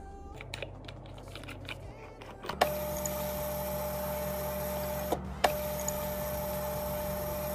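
Small electric motor running with a steady whir and a clear hum. It switches on with a click, stops for a moment with a click, then starts again.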